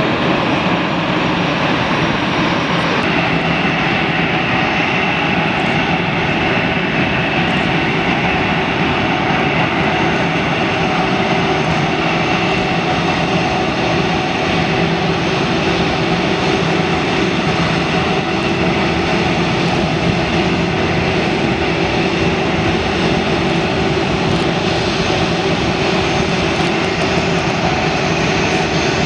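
Jet airliner engines running at low power on the apron: a steady roar with several held whining tones, which shift slightly about three seconds in.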